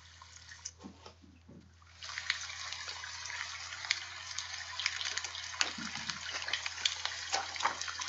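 A steady water-like rush full of small crackles, starting abruptly about two seconds in. A few soft knocks and rustles come from a picture book being handled and flipped toward the end.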